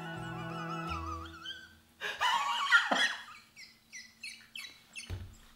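A man laughing wildly: a loud high burst of laughter about two seconds in, then a run of short squeaky wheezing laughs, each falling in pitch, about three a second. Jingle music plays under the start and stops about two seconds in.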